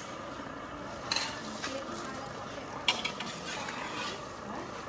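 Metal spatula scraping and clinking against metal woks as thin yellow pancakes are folded in them, with two sharp clinks, about a second in and a louder one near three seconds in.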